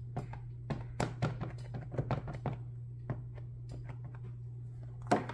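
Scattered light plastic clicks and taps from a clear plastic stamp-set case and its paper insert being handled on a desk, with a louder rustle about five seconds in. A steady low hum sits underneath.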